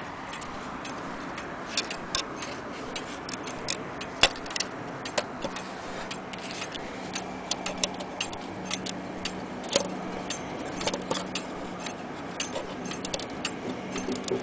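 Vintage Dutch wall clock ticking: sharp, fairly quick clicks of its movement, some louder than others, with a faint low hum in the middle.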